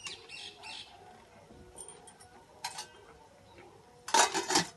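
Steel cooking utensils clattering briefly and loudly about four seconds in, a few sharp metal strokes beside a steel kadai on a wood-fired stove, after quiet scraping of a spoon stirring masala in the pan.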